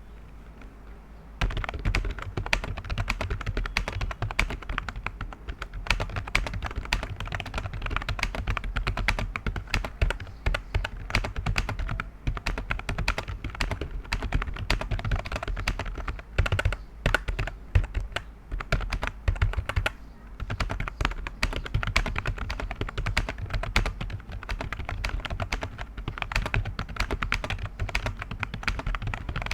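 Fast, continuous typing on a modded cheap membrane keyboard, a quick run of keystrokes that starts about a second and a half in and keeps going with only brief pauses.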